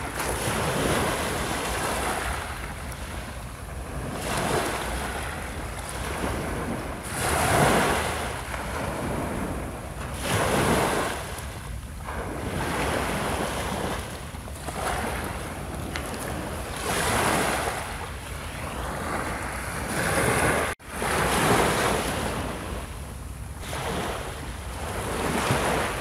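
Small waves breaking and washing up onto a pebble beach. The surf swells and falls away every few seconds, and the sound cuts out for an instant about two-thirds of the way through.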